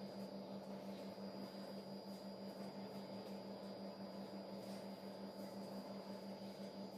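A faint, steady low hum over a soft hiss, with nothing else happening.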